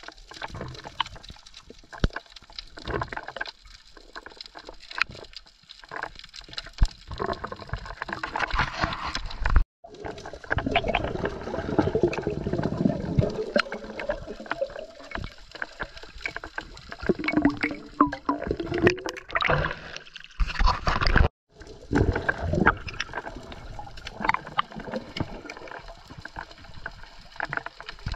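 Underwater water noise picked up by a diving camera: gurgling and sloshing with many irregular clicks and knocks, swelling louder in places. It cuts out briefly twice.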